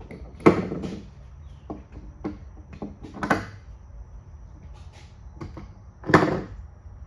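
Tooling clamps dropped one after another into slots cut in a thick pecan slab: three loud knocks about three seconds apart, with lighter clicks and taps between them.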